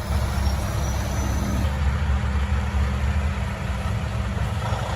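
Heavy truck engine running steadily with a deep, low rumble, easing off slightly near the end.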